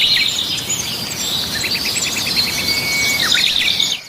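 Several birds chirping and trilling together over a steady rushing noise, which cuts off near the end.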